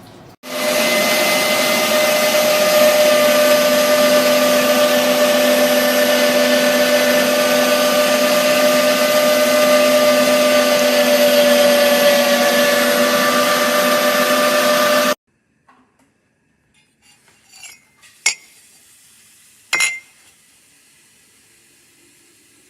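Sunmile 1000 W electric meat grinder's motor running with a steady hum and whine for about fifteen seconds, then switched off and stopping abruptly. Two sharp knocks follow a few seconds later.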